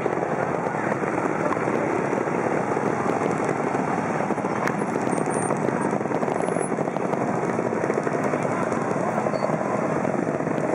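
Trials motorcycle engines running steadily.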